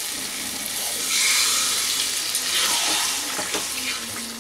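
Water poured into a hot kadai of frying masala, potatoes and taro, hissing and sizzling as it hits the pan. The hiss swells about a second in and dies down near the end, where a few spatula knocks follow.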